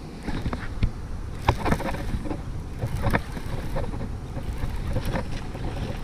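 Irregular knocks and clatter over a low rumble: handling noise aboard a bass boat.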